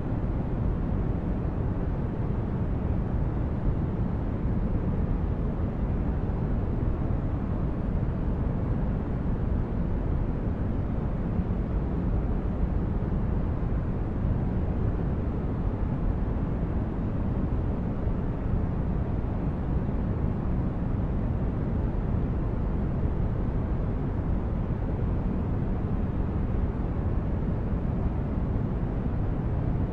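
Steady, deep relaxation noise track, strongest in the bass and dull at the top, like brown noise, with no change or rhythm.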